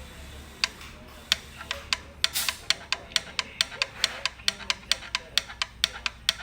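Sharp, regular clicking from the accessory-belt auto-tensioner of a Suzuki Wagon R (MH95S) with the engine running, about four to five clicks a second over a low hum. This is the tensioner's abnormal noise, the sign of a faulty auto-tensioner.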